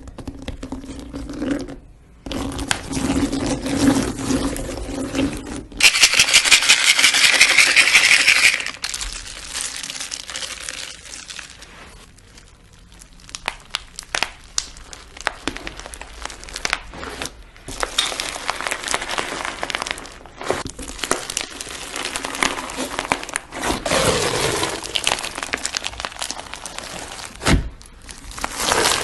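Slime being squeezed, poked and stretched by hand, giving many small crackles and clicks in several short clips one after another. A dense run of rapid clicking pops comes from about six to eight and a half seconds in.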